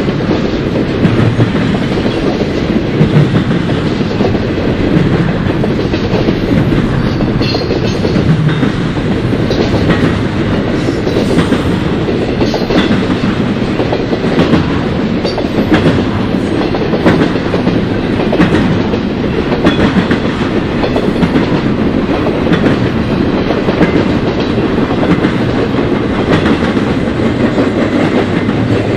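Union Pacific intermodal freight train rolling past, its double-stack container cars and trailer-carrying cars making a steady loud rumble of wheels on rail with a scattered clickety-clack of wheel clicks.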